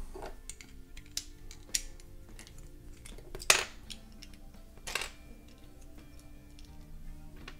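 Plastic LEGO bricks clicking and clattering as a hand picks through a loose pile, with a handful of sharp clicks; the loudest comes about halfway through. Soft background music plays underneath.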